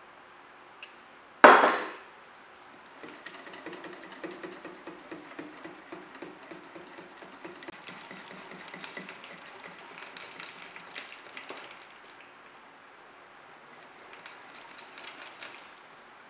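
Kitchenware: one loud clank about one and a half seconds in, then a utensil clinking and scraping quickly in a bowl for about eight seconds, and again briefly near the end.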